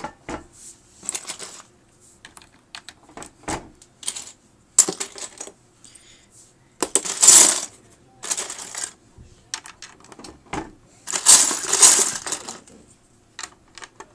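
Plastic Lego bricks clicking and clattering as hands rummage through a pile of pieces, with two louder spells of rattling: one about halfway through and one near the end.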